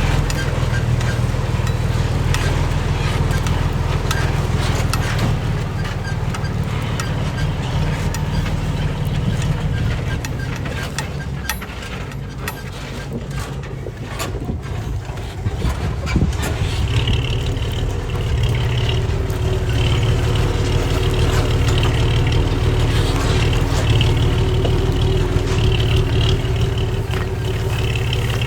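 Heavy diesel construction machinery running, a deep steady engine note with scattered clanks. It eases off for a few seconds around the middle, then picks up again with a high whine added.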